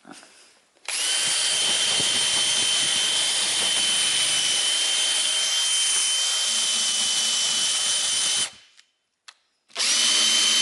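Handheld electric power tool cleaning a corroded metal valve body, spinning up to a steady high whine. It runs for about seven seconds, stops, then starts again near the end.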